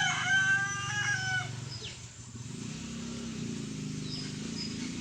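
A rooster crowing: one long call, held and then falling away, that ends about a second and a half in.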